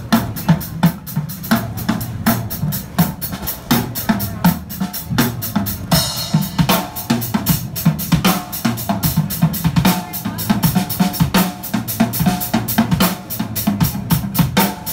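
Live rock drumming on a full drum kit: a fast, steady beat of cymbal strokes over kick drum and snare, with a crash about six seconds in.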